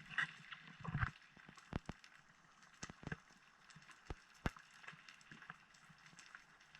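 Underwater sound picked up by a diver's camera: irregular sharp clicks and knocks, a few louder ones about a second in and near the middle, over a faint steady hiss.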